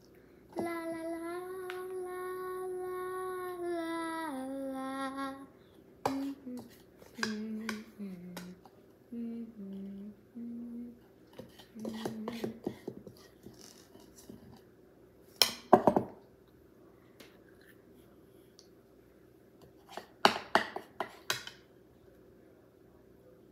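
A girl humming: a long held note that steps down to a lower one, then a short tune of low notes. Scattered clinks and knocks of kitchen dishes and utensils run through it, the loudest near the middle and toward the end.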